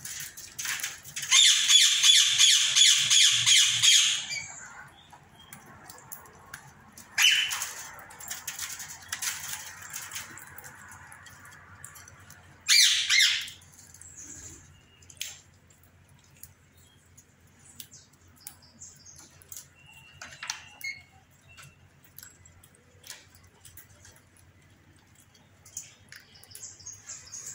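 Indian ringneck parakeets squawking: a loud run of rapid harsh screeches starting about a second in and lasting about three seconds, another call around seven seconds in, and a short screech near thirteen seconds. Later there is a brief whistle and scattered faint clicks.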